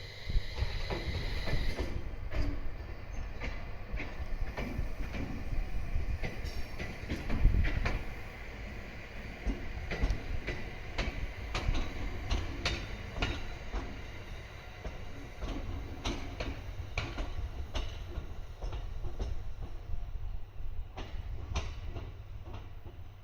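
701 series electric train passing at low speed: a steady low rumble with irregular clicks and clatter as the wheels run over rail joints and points.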